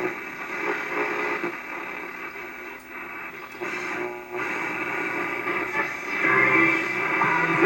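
A 1946 Sparton Bakelite AA5 table radio playing through its own small speaker while being tuned across the AM band: thin, muffled static and faint station audio coming and going, growing louder from about six seconds in as a station comes in.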